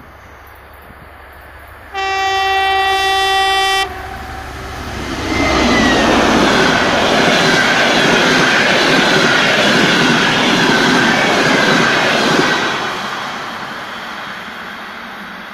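TEP70 diesel locomotive sounding its horn in one steady blast of about two seconds, then rushing past at speed hauling a passenger train: loud engine and wheel-on-rail noise with a steady high tone over it, fading as the carriages recede near the end.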